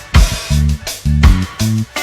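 Upbeat music with a steady drum-kit beat, bass and plucked guitar.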